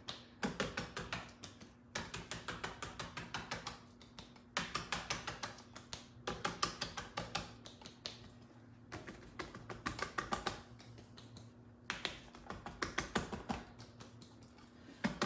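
A sponge pad dabbing paint onto a laminate countertop: quick taps, several a second, in bursts of about a second and a half with short pauses between.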